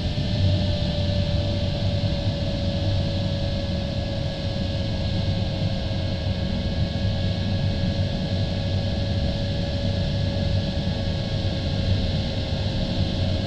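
Steady rush of air over the LS-4a sailplane's canopy in flight, with a low hum. A single held tone sounds throughout and drifts slowly down in pitch.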